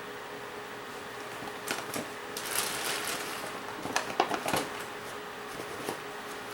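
Small hand tools being rummaged through: light clattering and clicking in three short spells, about two, three and four seconds in, while searching for a screwdriver.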